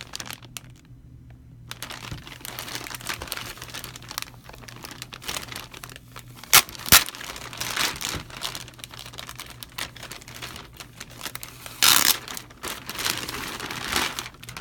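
Clear plastic bag crinkling and rustling as it is handled and opened to take out a rubber hose, with two sharp, loud crackles about halfway through and another loud burst a couple of seconds before the end.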